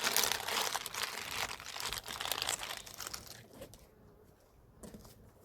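Dense crinkling, crunching rustle of hands handling material while planting seed potatoes, busy for about three seconds and then tapering off to faint rustles.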